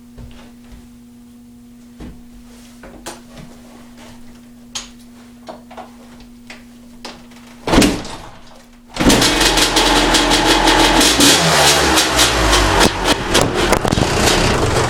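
1997 Honda CR250R's single-cylinder two-stroke engine with a Pro Circuit pipe and exhaust, kick-started: faint clicks and knocks, one loud thump near 8 s, then the engine fires about 9 s in and runs loud and uneven with revs rising and falling.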